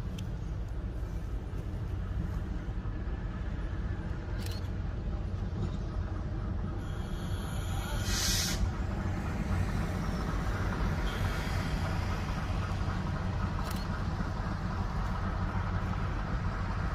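GE 44-ton diesel locomotive idling on its twin diesel engines, a steady low rumble. About eight seconds in there is a short hiss of released air.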